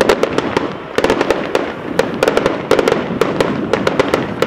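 Fireworks going off: a rapid, dense string of bangs and crackles, several a second, without pause.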